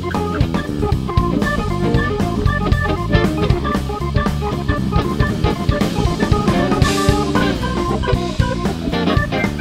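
Instrumental jazz-rock band playing live: an archtop electric guitar plays quick runs of single notes over drum kit and bass, with a cymbal crash about seven seconds in.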